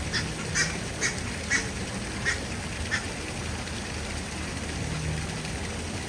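A duck quacking: about six short quacks in quick succession over the first three seconds, over steady background noise.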